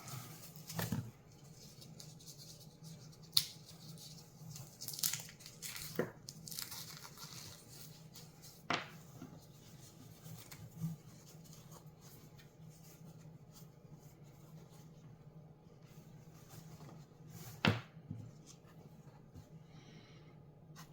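A small wrapped package being opened by hand: tape tearing and wrapping rustling in short spells, with a few sharp clicks, over a faint steady hum.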